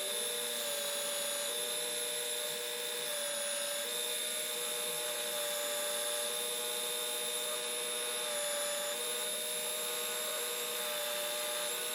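Work Sharp Ken Onion Edition knife sharpener with its Blade Grinder Attachment running steadily, the electric motor whining and the abrasive belt hissing as it grinds a knife edge. The pitch shifts slightly a few times.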